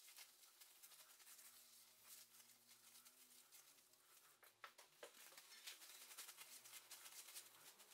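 Faint rubbing and swishing of a cloth wiped across a cast iron machine table.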